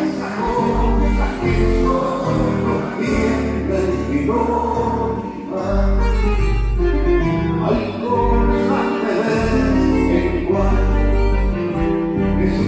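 Live band playing a song with singing: guitars over bass notes held for a second or more at a time.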